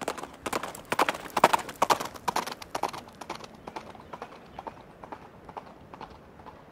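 Footsteps on ground strewn with dry leaves and twigs, about two steps a second, louder over the first three seconds and then fainter.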